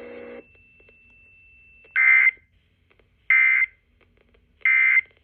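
Emergency Alert System end-of-message signal: three short bursts of digital data tones, about a second and a quarter apart.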